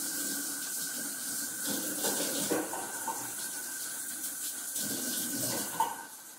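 Kitchen tap running into the sink as uncooked pasta is rinsed, with some clattering of dishes in the water. The water is shut off near the end.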